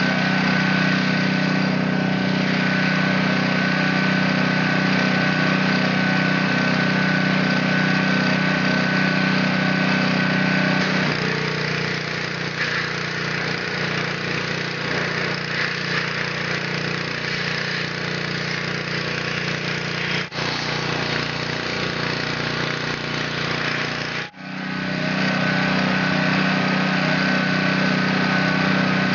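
Pressure washer running steadily, its motor humming under the hiss of spraying water. Its note drops a little about eleven seconds in, and two short dips in level come later.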